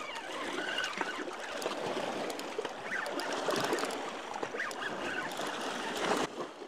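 Water splashing and lapping, a steady wash of noise with a few faint knocks.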